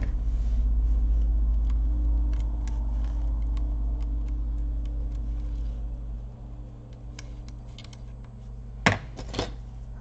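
Small clicks and taps of tweezers and fingers working a laptop fan's cable connector on the motherboard, with two sharper clicks near the end. A steady low hum runs underneath and drops about two-thirds of the way through.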